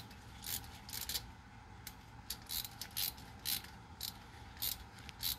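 A hand ratchet clicks in short, irregular strokes, about a dozen faint clicks, as it turns a bottoming tap cutting fresh threads for a Helicoil insert in an aluminum intake plenum.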